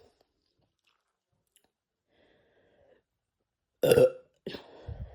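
A person burping after gulping carbonated Sprite: one loud burp about four seconds in, then a second, softer burp straight after.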